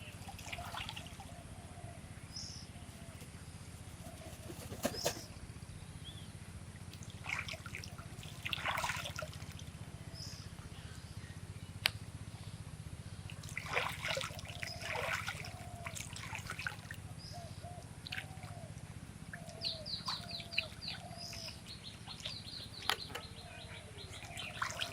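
Swans calling with many short, soft, low calls scattered throughout, among splashing water and a few higher chirps.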